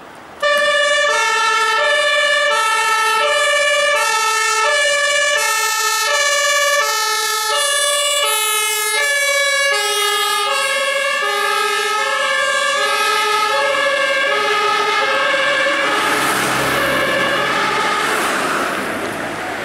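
A compressed-air two-tone emergency horn (Pressluft-Martinshorn) on an ambulance service vehicle sounds its even alternating high-low tones. It starts suddenly, drops slightly in pitch as the vehicle passes, and cuts off about three-quarters through, leaving the vehicle's engine and tyre noise.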